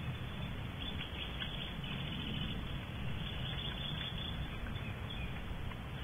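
Steady low hum and hiss in a barn owl nest box, with a few faint, short, high chirps from newly hatched barn owl chicks about one to two seconds in and again near four seconds.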